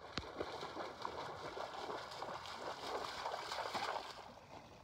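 German Shepherd splashing as it swims and wades through lake water, a continuous sloshing and gurgling that fades about four seconds in.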